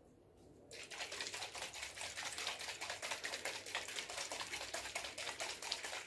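Hands working briskly at a small object, a rapid rasping friction of many quick strokes that starts about a second in and stops near the end.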